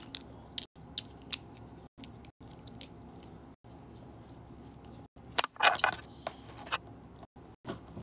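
Scattered small clicks and taps of things being handled, with a brief burst of rustling and clatter, the loudest part, about five and a half to seven seconds in. The faint background hiss cuts out to nothing in short gaps several times.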